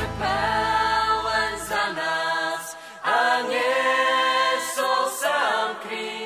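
Gospel choir singing long held chords in several voice parts. The low bass underneath stops about two seconds in, leaving the voices nearly alone.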